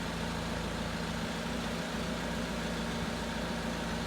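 Forklift engine running steadily under load with its hydraulic lift working, a constant low hum that stops near the end as the lift is finished.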